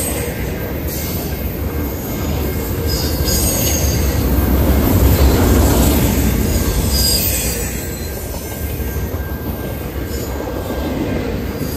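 Double-stack intermodal freight train rolling past: a steady rumble of steel wheels on rail that swells midway, with brief high-pitched wheel squeals now and then.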